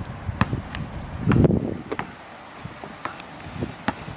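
Basketball bouncing on concrete as it is dribbled slowly by hand: a handful of unevenly spaced thuds, the loudest about a second and a half in.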